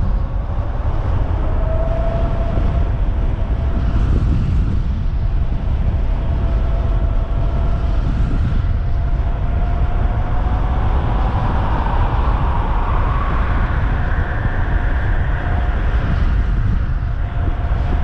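Heavy wind rumble on the microphone from riding at speed, with the thin whine of a 72-volt electric bike's motor rising in pitch as it accelerates in its highest power mode.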